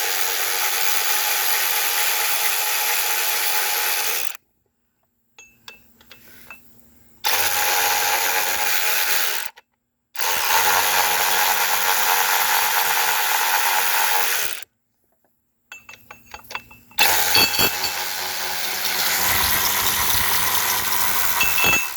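Power drill spinning out the four loosened bolts that hold an ATV's rear axle tube, in four steady runs of a few seconds each with short pauses and light clicks between.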